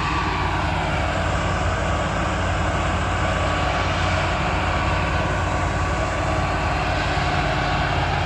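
Engine of heavy construction equipment running steadily at an even pitch, with a constant low hum.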